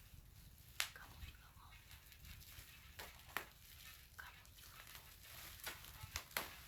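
Faint rustling and crinkling of parcel wrapping being handled and torn open, with scattered sharp clicks and taps every second or so.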